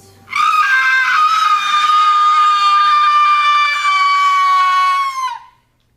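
One long, high-pitched human scream, held at one pitch for about five seconds. It sags slightly at the end and then cuts off.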